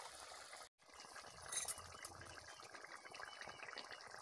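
Thick egg and spinach curry simmering in a metal kadai: a soft, steady bubbling with fine popping. A brief sharp click about a second and a half in, and the sound drops out for an instant just before it.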